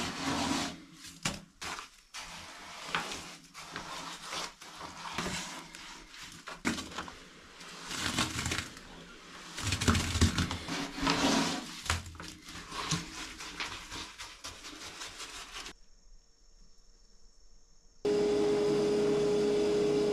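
Wet concrete tipped and scraped out of a plastic bucket into a rebar form, in a run of irregular slides, scrapes and knocks. It stops about 16 seconds in, and near the end a loud steady sound with one held tone starts.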